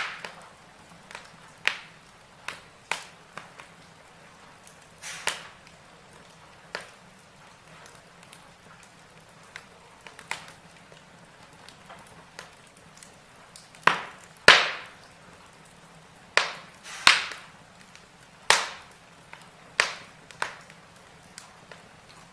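Wood fire in a fireplace crackling: irregular sharp pops every second or so over a faint steady hiss, the loudest pop about two-thirds of the way through.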